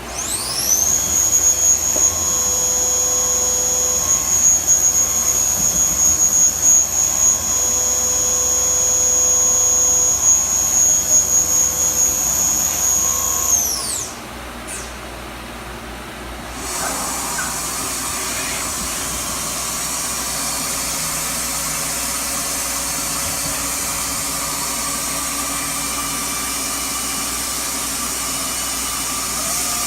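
Doosan Puma 2100Y CNC lathe spindle running up: a high whine that climbs quickly, holds steady for about thirteen seconds, then winds down. After a short lull a second, steadier machine running sound starts and carries on.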